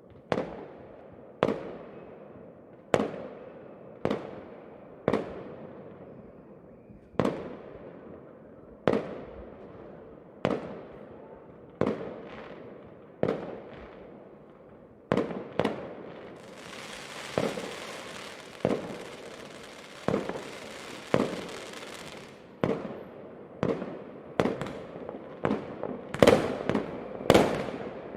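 Fireworks bursting one after another, each sharp bang trailing off in an echo, about one every second and a half. From about the middle a crackling hiss of sparks runs for several seconds, and near the end the bangs come faster.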